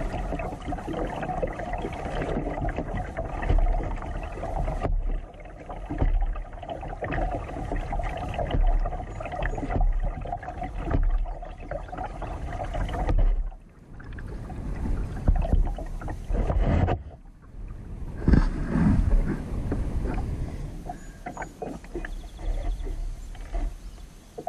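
Kayak moving on calm water, with paddle and water sounds over a steady low rumble that drops away briefly a few times.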